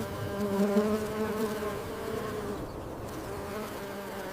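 A bee buzzing steadily, its hum wavering slightly in pitch.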